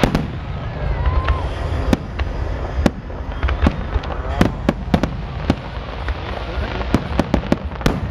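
Aerial firework shells bursting: a string of sharp bangs at irregular intervals, with a quick cluster of bangs near the end.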